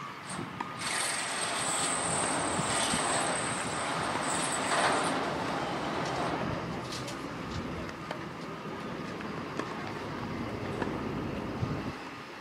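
A heavy vehicle passing, its noise swelling and then easing off, with a thin, steady high-pitched squeal over the first few seconds.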